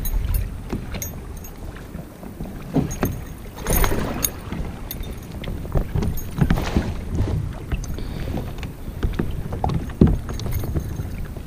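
Handling noise as a spinnerbait is worked out of a chain pickerel and a mesh landing net on a kayak: scattered small clicks and knocks of the lure and gear, with a few louder rustles of the net about four and seven seconds in, over a steady low rumble.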